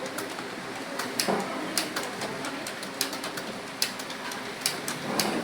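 Computer keyboard keystrokes clicking at an uneven pace during a typing test.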